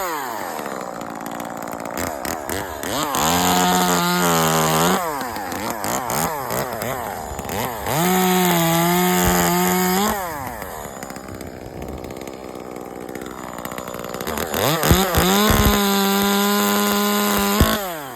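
Small chainsaw cutting branches: it is run up to full speed three times in long pulls, with the pitch sagging under load in the first. Between pulls it drops back to a lower, uneven running.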